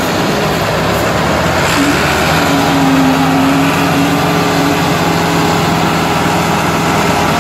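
Two Massey Ferguson tractors, a 385 and a 360, running their diesel engines hard under full load as they pull against each other in a tug-of-war. Loud, steady engine drone, with a steady pitched hum setting in about two seconds in.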